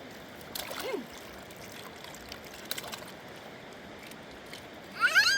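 Steady rush of a mountain river, with a few faint clicks and a short falling sound about a second in. Near the end a loud, high wavering call begins.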